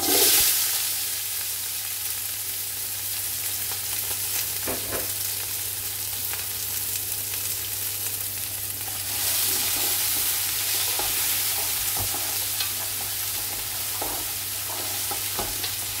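Diced onions tipped into hot oil with cumin seeds in an aluminium pot, hitting the oil with a sudden loud sizzle, then frying with a steady sizzle while a wooden spatula stirs them, with a few light knocks. The sizzle grows louder again about nine seconds in.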